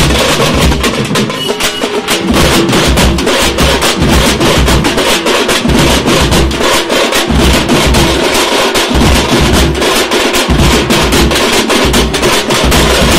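Street drum band playing a fast, dense rhythm: large stick-beaten bass drums booming under rapid strokes on smaller shoulder-slung drums.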